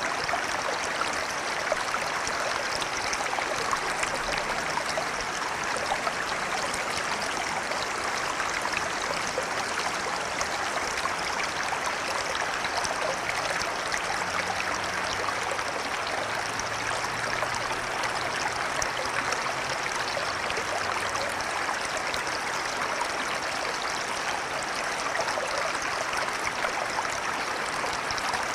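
River water flowing over stones: a steady, unbroken rush.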